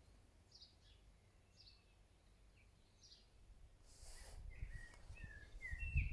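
Faint small-bird chirps: a few short, falling notes in the first three seconds. From about four seconds in, a louder rustle and low rumble come in, with more short chirps.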